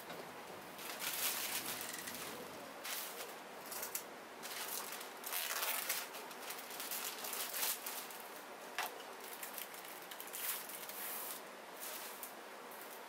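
Black plastic parcel bags and bubble wrap crinkling and rustling in irregular bursts as they are handled and pulled apart.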